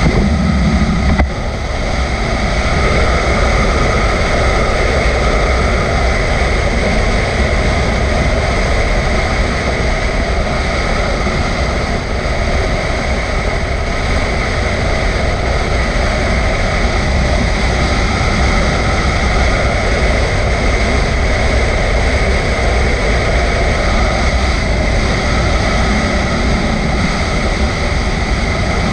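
Motorcycle cruising on a mountain road: steady wind rush over the bike-mounted camera's microphone mixed with the engine and road noise.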